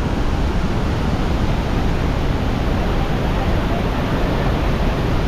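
Large waterfall pouring down at close range: a loud, even, unbroken rush of falling water.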